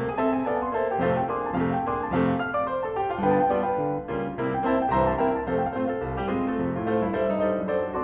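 Background piano music: a steady flow of notes and chords.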